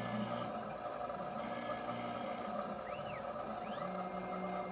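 Dyna Myte 2800 CNC milling machine cutting a pocket in a metal block with an end mill: a steady spindle and cutting sound, with the axis drive motors whining up and down in pitch as the table speeds up and slows, briefly about three seconds in and in a longer sweep near the end.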